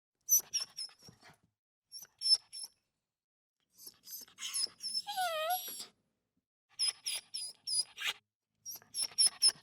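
Dog whimpering and whining in clusters of short, high-pitched squeaks, with one longer wavering whine about five seconds in.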